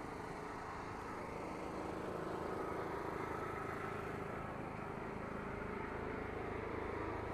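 Steady rumble of a moving vehicle, with a faint held tone that drifts slightly in pitch.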